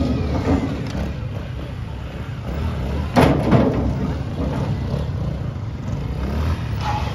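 Off-road police motorcycles running at low revs while a rider works his bike over a stack of tyres, with one loud thump about three seconds in.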